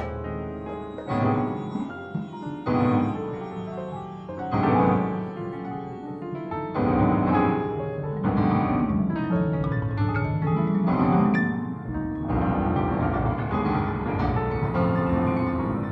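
Piano music: chords struck every second or two over a moving bass line, with a steady rhythm.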